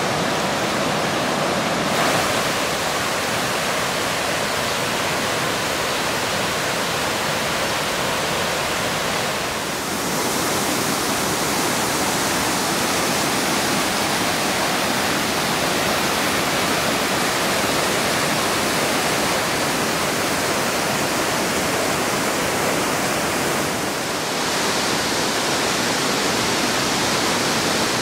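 Waterfall and cascades, a steady, loud rush of falling water. Its tone shifts abruptly about 2, 10 and 24 seconds in.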